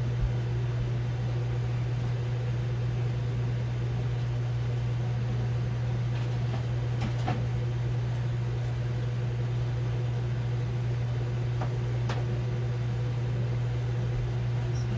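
Ninja Foodi multicooker preheating, its crisping-lid fan and heater running with a steady low hum and a couple of faint ticks around the middle.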